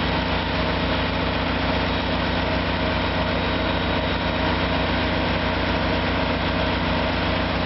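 Diesel locomotive engine idling steadily, a low, even running note with a fast pulse.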